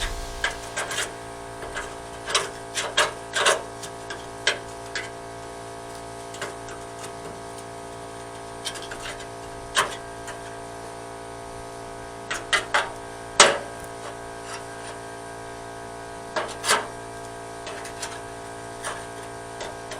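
A steady electrical hum with scattered light clicks and knocks, about a dozen, the sharpest a little past the middle, like tools and parts being handled.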